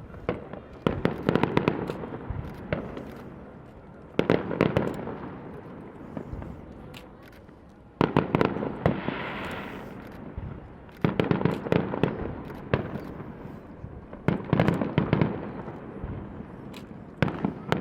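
Aerial fireworks shells bursting overhead: six loud booms, one every three to four seconds, each followed by crackling that dies away.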